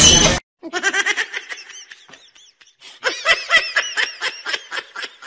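A burst of orchestral music with timpani cuts off abruptly just after the start. Then someone laughs in rapid, high-pitched bursts, pauses briefly, and starts again louder about three seconds in.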